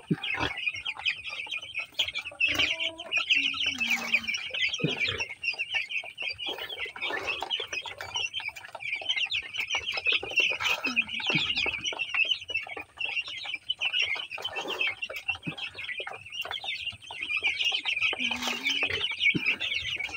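A flock of 12-day-old broiler chicks peeping together in a dense, unbroken chorus of high chirps, with a few lower calls about three seconds in and near the end.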